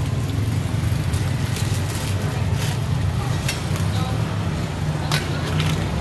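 A steady low rumble, with a few sharp clicks and scrapes scattered through as spicy salad is tossed by a gloved hand in a stainless steel bowl.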